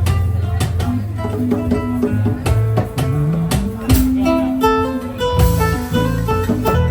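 Spanish-style acoustic guitar music: quick plucked melody runs over a moving bass line, with sharp strummed strokes.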